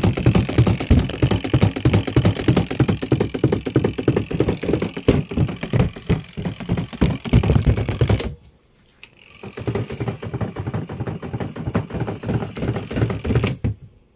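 Washing machine running with a sack of Tide powder inside, a rapid, loud rattling and knocking with low thuds. It stops about eight seconds in, starts again a second later, and stops just before the end.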